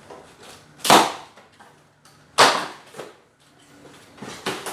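Two sharp knocks about a second and a half apart, then a few lighter knocks near the end, from a new car air-conditioning condenser and its packaging being handled.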